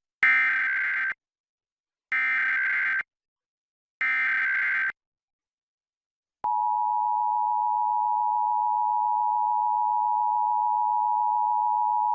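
Emergency Alert System SAME header: three short bursts of warbling digital data tones, each about a second long and a second apart, encoding the alert. About six seconds in, the steady two-tone EAS attention signal starts and holds, announcing the alert.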